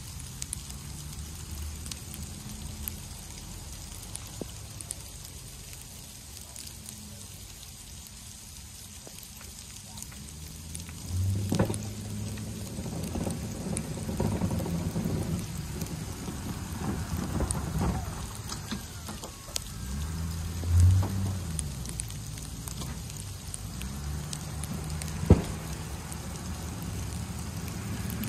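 Plow trucks working a snowy lot: engines running as a low hum that gets louder from about eleven seconds in, with a few sharp clanks and knocks, over a steady hiss like falling rain.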